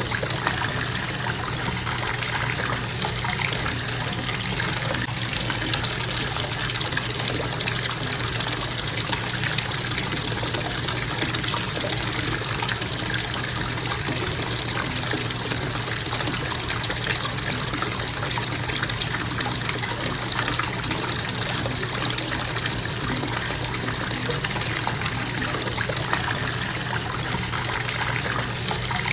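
Bathtub faucet running in a constant stream, a steady, even rush of water filling the tub.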